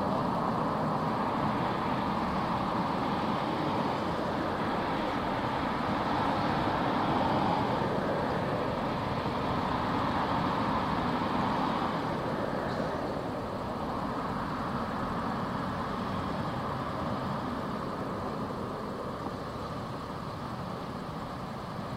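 Steady road traffic on a busy city street: cars and vans passing, a continuous wash of tyre and engine noise that grows a little quieter about halfway through.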